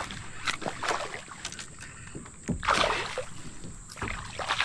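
A hooked largemouth bass splashing at the surface while it is fought and reeled toward a kayak, heard as a series of short splashes and knocks. The loudest comes a little past halfway.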